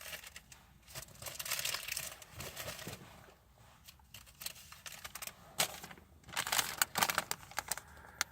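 Paper receipts being handled: irregular rustling and crinkling of paper with small clicks.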